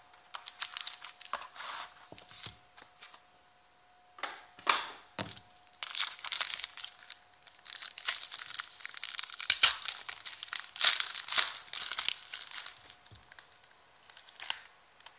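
Gold foil card-pack wrapper being torn open and crumpled by hand: irregular crinkling and tearing that is softer at first, pauses briefly, grows dense and loudest in the middle, then tails off.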